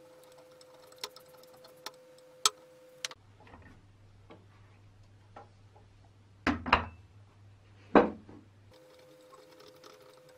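Screwdriver and gloved hands working on a metal balance scale: a few small metal clicks, then a quick pair of sharp metal clinks about six and a half seconds in and another, the loudest, at about eight seconds.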